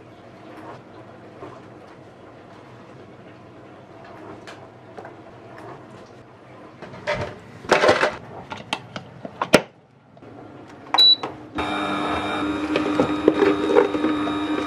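Plastic parts of an electric juicer clattering and clicking as they are handled, then the juicer's motor switching on and running with a steady hum.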